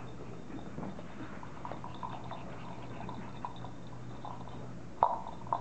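English bulldog puppy playing with its toys: light scuffling and soft taps over a faint steady hum, then two short, sharp yips near the end.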